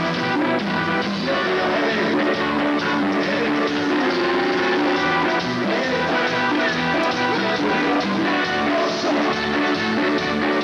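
Music: a band song playing continuously at an even, loud level with a steady beat.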